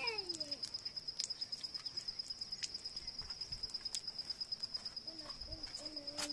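An insect trilling steadily on one high, fast-pulsing note, with scattered light clicks and taps.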